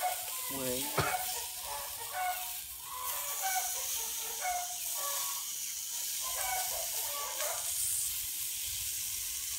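Hot-air gun blowing a steady hiss onto meat grilling beneath it, with the meat sizzling. Many short, scattered calls sound in the background.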